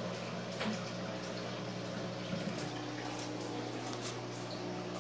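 Steady electric hum with a faint trickle of water, from aquarium filters running on the turtle tanks, with a few light clicks and rustles of handling.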